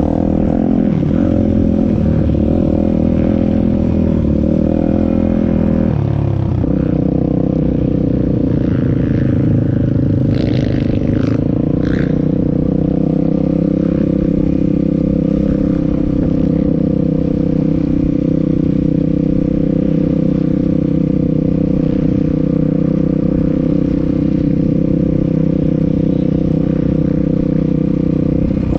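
Piranha P190 pit bike's single-cylinder four-stroke engine running at low, steady throttle while ridden slowly. The engine note drops about six seconds in and then holds steady.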